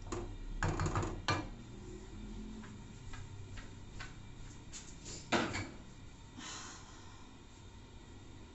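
Kitchen clatter: a wooden spoon knocking a few times against a plastic bowl, then one louder, sharper knock about five seconds in.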